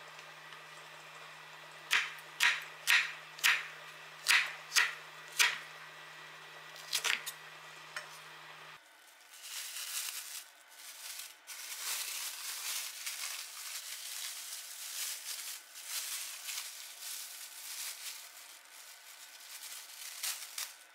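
A kitchen knife chopping a green chili pepper on a wooden cutting board: about seven sharp strokes roughly half a second apart, starting about two seconds in, then a few more. From about nine seconds in, a thin plastic bag rustles and crinkles as a stick of fresh garaetteok (Korean rice cake) is pulled out of it.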